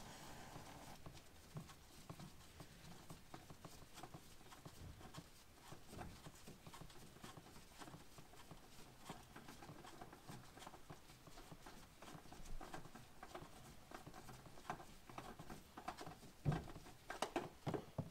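Faint scraping and clicking as a loosened spin-on oil filter is turned off by hand under the car, with a few louder clicks near the end.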